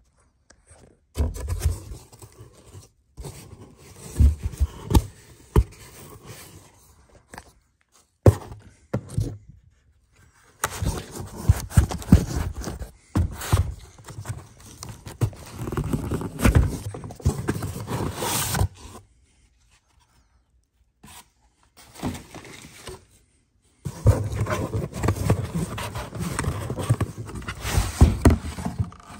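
Handling noises from unpacking: irregular scraping and rustling with many sharp knocks, in stretches broken by short pauses.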